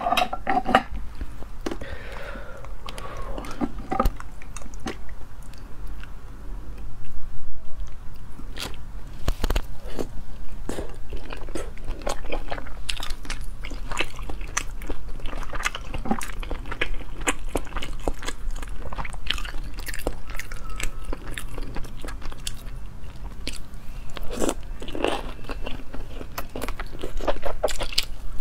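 Close-miked biting and chewing of sea snail meat, with many short wet mouth clicks and smacks.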